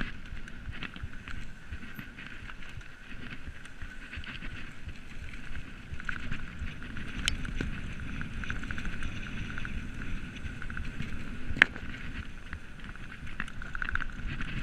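Mountain bike descending a dirt singletrack: tyres rolling over the dirt and the bike rattling over bumps, with wind on the microphone. A sharp knock about three-quarters of the way through is the loudest moment.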